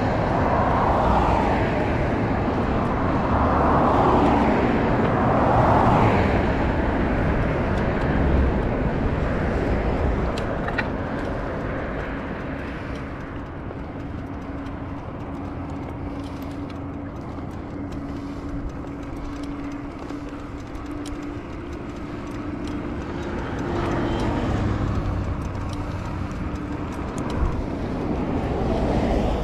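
Motor traffic on the road, cars passing with a rushing noise that swells and fades, loudest in the first few seconds and again near the end. A steady hum runs through the quieter stretch in the middle.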